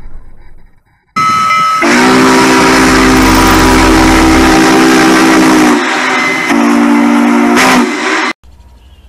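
Steam whistle sounding a long blast of several notes held together, then a shorter second blast, over a loud hiss of steam that starts about a second in and cuts off abruptly near the end.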